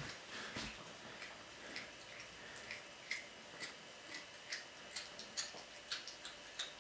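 A cat chewing a raw chicken head: faint, irregular crunching clicks, a few a second, coming quicker near the end.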